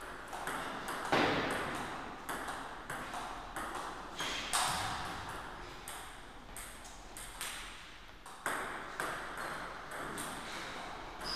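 Table tennis ball struck back and forth in a rally, a string of sharp, irregular clicks as it hits the bats and bounces on the table.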